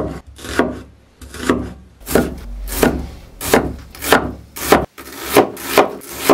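Kitchen knife slicing through an onion on a cutting board, a regular run of strokes about two a second, each a short scraping cut into the board.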